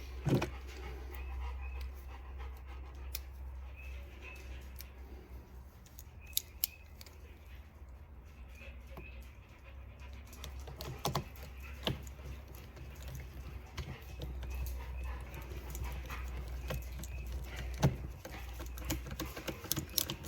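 A dog panting, over a steady low hum, with a few sharp clicks and knocks spread through.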